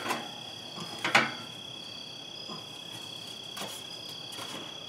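Crickets trilling steadily at a high pitch, with a few sharp clinks and knocks, the loudest about a second in.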